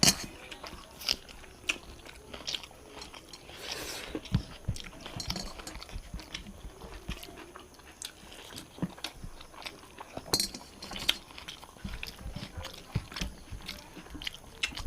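People eating a rice meal of fish curry and fried greens: close chewing and biting with many small, irregular clicks and crunches.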